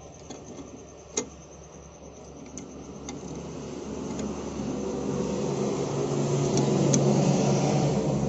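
A few light metal clicks as a tappet cover is fitted onto a diesel engine's cylinder head. Under them a steady machine hum grows louder through the second half.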